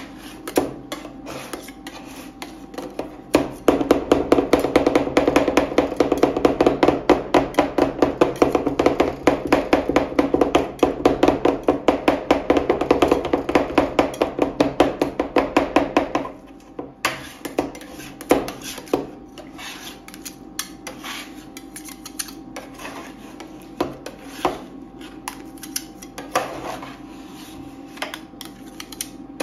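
Two metal spatulas chopping freezing ice cream base on a steel cold plate: from about three seconds in to about sixteen seconds, a fast steady run of metal clacks, several a second. After that it turns to slower scraping with occasional single taps as the ice cream is scraped together.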